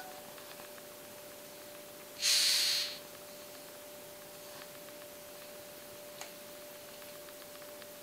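Xylotrupes rhinoceros beetle stridulating: one hissing rasp lasting just under a second, about two seconds in, over a faint steady hum.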